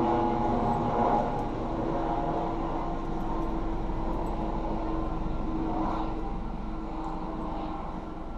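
Steady engine drone with a held low hum, slowly fading.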